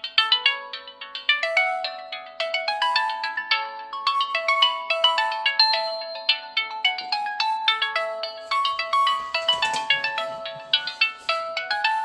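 A preloaded LG Stylo 2V ringtone playing: a fast, repeating melody of short, bright notes with sharp starts.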